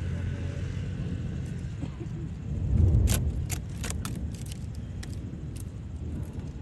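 Fireworks: a low boom about three seconds in, followed by a string of sharp crackling pops over the next couple of seconds, over a steady low rumble.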